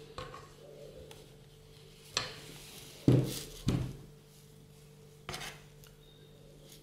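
A spatula scraping cake batter from a steel mixing bowl and spreading it in a metal cake tin, with about five short knocks of utensil on metal, the loudest about three seconds in.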